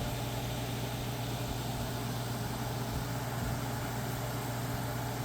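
1990s Capehart 40-pint dehumidifier running: a steady hum with an even rush of fan air. Its sealed Electrohome fan motor is turning again now that its seized front bearing has been oiled free.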